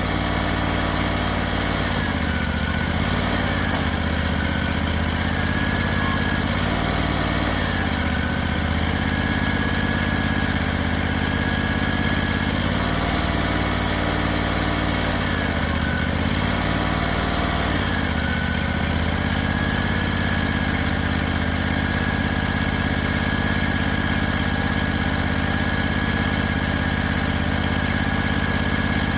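Engine of a hydraulic sawmill running steadily, its speed dipping briefly about six times in the first two-thirds, with a thin high whine running alongside.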